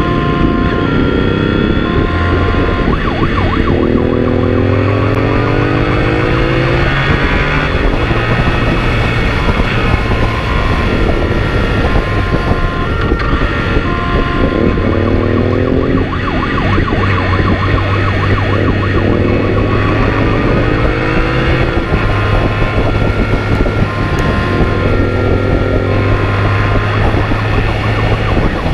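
Motorcycle engine accelerating through the gears, its pitch rising and dropping back at each shift, over road noise. A two-tone siren alternates steadily alongside.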